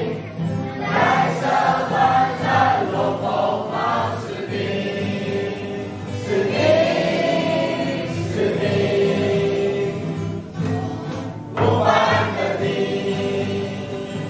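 Several voices singing a song together in unison, with two acoustic guitars strumming the accompaniment.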